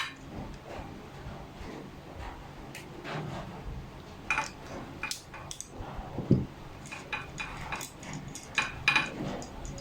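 Irregular light metallic clicks and clinks of a tool working the bolts on an aluminium bike stem, with one louder knock a little after the middle.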